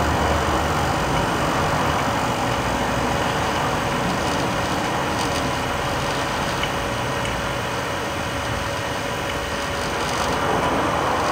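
Refrigeration vacuum pump running steadily, evacuating a mini-split air conditioner's refrigerant line set as the vacuum is pulled down through a few thousand microns.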